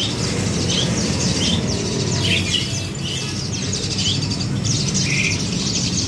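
Many caged birds chirping, short high calls overlapping every half second or so, over a steady low background rumble.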